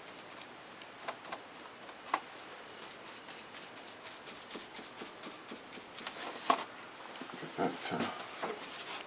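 Large round paintbrush being punched against the fascia board, stippling on paint: irregular soft taps and dabs, with a few sharper ones.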